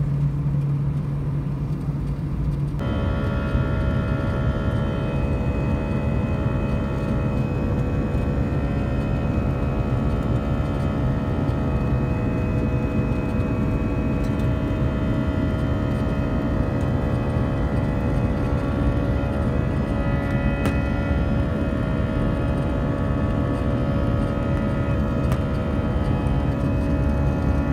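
Airbus A319 jet engines heard from inside the cabin. For the first few seconds there is a steady low hum, then an abrupt change to a loud, even drone with several steady whining tones as the engines run at climb power.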